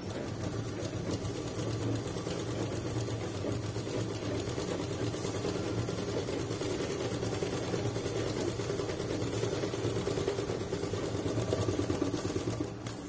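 Sewing machine running steadily at a fast, even stitching rhythm as it sews a seam through layers of fabric and foam sponge. It stops near the end.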